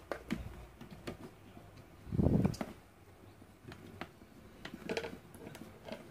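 Handling noise from a mixer's switching power-supply board and its wire connectors: scattered small clicks and taps, with one louder dull bump with rustling about two seconds in.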